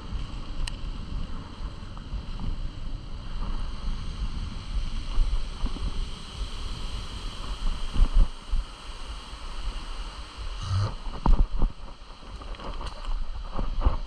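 Wind buffeting the microphone over a low rumble while riding fast, with a few sharp knocks about eight and eleven seconds in.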